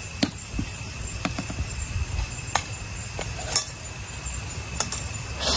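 A metal spoon clinking against a bowl as relish is scooped out: about six short, separate clinks spread roughly a second apart.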